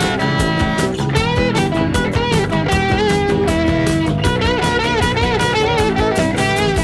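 Rock music with an electric guitar playing a lead line full of string bends over a steady beat and bass.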